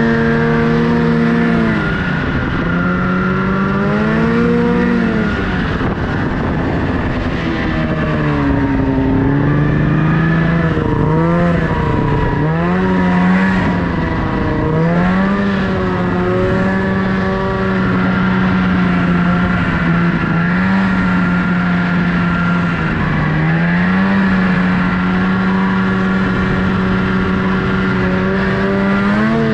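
Snowmobile engine running under throttle, its pitch holding steady for long stretches and dropping and climbing back several times as the throttle is eased off and opened again.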